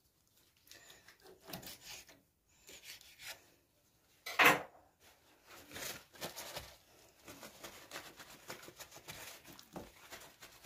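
Whole raw chicken being rubbed and patted dry with a paper towel on a bamboo cutting board: soft rubbing and rustling with scattered handling knocks, the loudest a sharp knock about four and a half seconds in.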